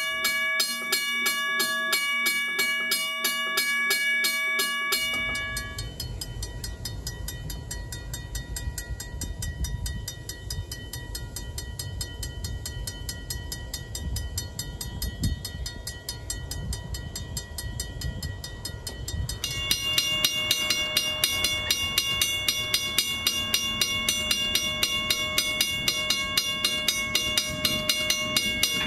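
Three Australian mechanical level-crossing bells ring in turn, each struck rapidly and continuously by its hammer. First a Wabco bell for about five seconds. Then a Safetran mechanical bell at a working crossing, quieter and over a low rumble, and from about twenty seconds in a louder, brighter Western Cullen Hayes 333 Gen 1 bell.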